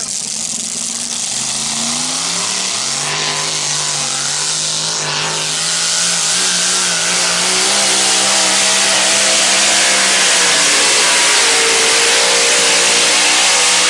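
Competition pulling tractor's engine at full throttle hauling a weight sled: the revs climb over the first few seconds, then hold at a high, steady pitch that grows louder as the tractor comes closer.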